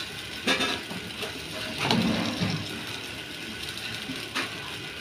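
Metal spatula scraping and clinking against a flat steel dosa griddle while a dosa is worked on it, with a sharp clink about half a second in and another near the end, over a steady background noise.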